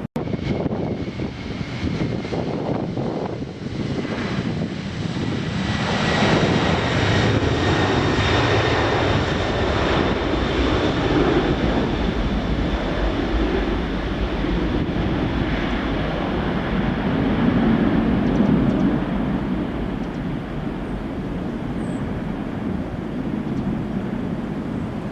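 Airliner jet engines running with a steady roar, a faint high whine over it that fades out in the first ten seconds or so.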